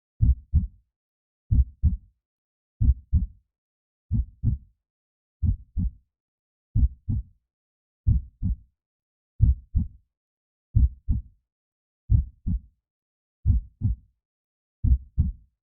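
Slow, steady heartbeat sound: a low lub-dub double thump repeating about every 1.3 seconds, with silence between the beats.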